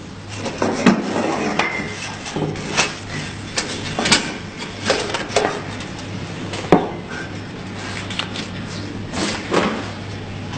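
Sheet-metal notching machine working stainless or galvanized strip: a series of irregular sharp clacks, roughly one or two a second, over a steady hum.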